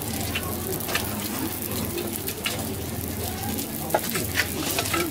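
Okonomiyaki frying on a hot flat-top griddle: a steady sizzle with scattered crackles and pops, over a low steady hum.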